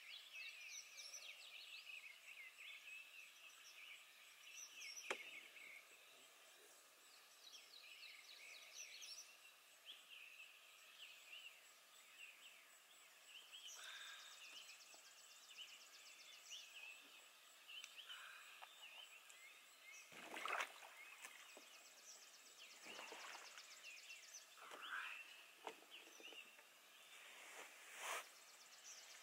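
Faint dusk chorus of many small animals chirping without pause, with a fast high trill for a few seconds midway. A few sharp knocks stand out above it, the loudest about two-thirds of the way through.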